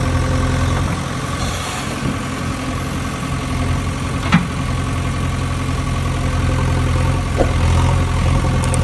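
Steady engine idling drone, with one sharp knock about four seconds in.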